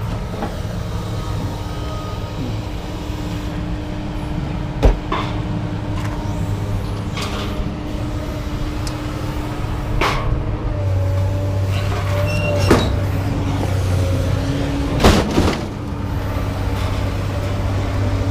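A vehicle engine running steadily, with a few sharp knocks over it; the low rumble grows stronger about eleven seconds in.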